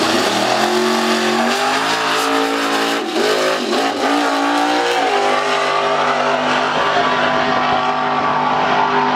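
Drag-racing Datsun pickup launching at full throttle: the engine's pitch climbs through the gears, drops with two quick shifts about three and four seconds in, then holds a steady high note as the truck runs away down the strip.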